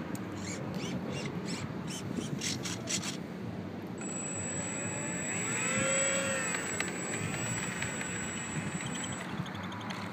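Electric motor and propeller of a HobbyZone P-47 Thunderbolt RC model plane running on the ground; its pitch rises to a peak about six seconds in and falls again, with a thin high whine over the middle part.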